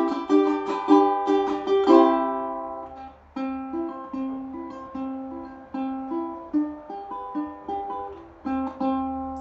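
Tenor ukulele being played: quick strummed chords at first, then after a short break about three seconds in, a simple melody picked note by note.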